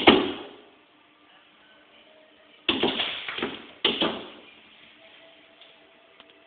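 A pheasant striking and pecking at a glass window pane from outside, setting the pane rattling: one loud bang at the start, then a flurry of knocks about three seconds in and another bang just after.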